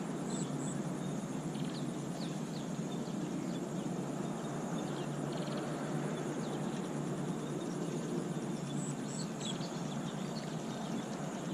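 Outdoor ambience: scattered short bird chirps over a steady, high-pitched insect drone and an even, low background noise.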